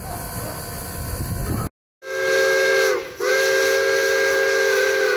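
Steam whistle of Pere Marquette 1225, a 2-8-4 Berkshire steam locomotive, blowing two blasts, a short one and then a longer one of about two seconds, each a chord of several close tones. Before the whistle there is a low rumbling noise that breaks off abruptly.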